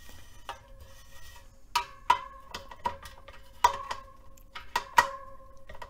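Hand tools clicking and tapping against the tensioned bladed spokes of a carbon bicycle wheel while the spokes and nipples are turned. There is a handful of sharp metallic clicks, and clear ringing notes hang on after the strongest ones.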